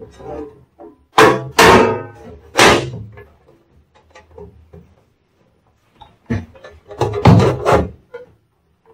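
Sheet-metal chassis cover of a UPS being fitted back over the unit's frame, clanking and scraping against the metal chassis. A few loud knocks with a brief metallic ring come in the first three seconds, then another cluster of knocks and scrapes about seven seconds in.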